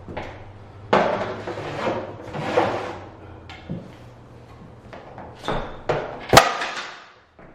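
Vinyl click planks being handled and set down: scraping and knocking, with one sharp clack about six seconds in as a plank drops onto the floor.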